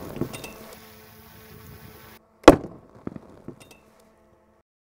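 A 12-gauge shotgun firing a solid lead slug: one very loud blast about two and a half seconds in, followed by a few light ticks of debris landing. Before the blast, faint scattered pattering of fragments falling.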